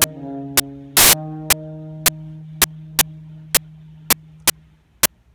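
Saxophone and string chamber orchestra holding the final chord of a blues piece, the notes dying away about five seconds in. Sharp clicks about twice a second run through it, with one louder burst about a second in.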